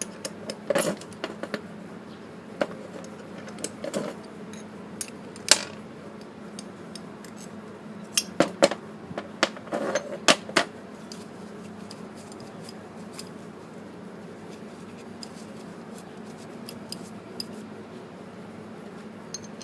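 Small metal tools and brake master cylinder parts clinking and knocking while being taken apart and cleaned, with a cluster of sharp clicks about eight to ten seconds in and only a few after that, over a steady low hum.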